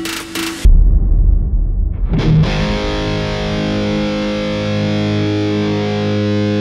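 Intro music: a rhythmic guitar pattern that breaks off about half a second in into a loud, deep low hit. From about two seconds a distorted electric guitar chord rings out and holds.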